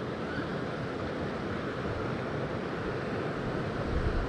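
Steady rush of wind and running creek water, with wind buffeting the microphone in low thumps about four seconds in.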